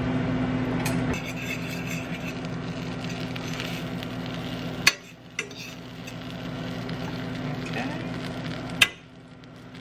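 Butter and cheese sizzling gently in a stainless steel skillet while a spoon stirs and scrapes the pan. Two sharp clicks, one about halfway through and one near the end.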